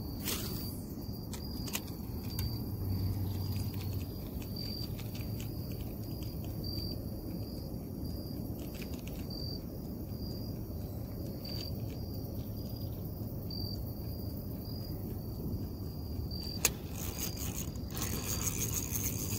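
Crickets chirping in an even, repeating pulse over a steady low background. Near the end there is a sharp click, then a stretch of rattling and scraping.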